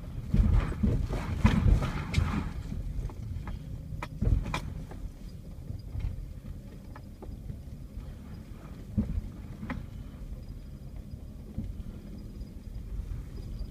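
Vehicle driving slowly over a rough dirt track, heard from inside the cab: a steady low rumble with clusters of knocks and rattles as it goes over bumps. The knocks are heaviest in the first two seconds and come again about four and nine seconds in.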